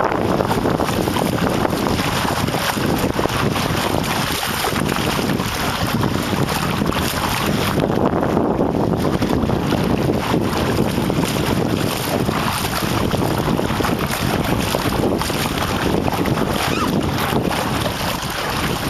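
Steady, loud wind noise buffeting the microphone, over the wash and splash of choppy water around a small boat under sail.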